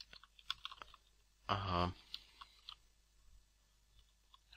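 Computer keyboard typing: scattered light key clicks in small runs. A short pitched hum about one and a half seconds in.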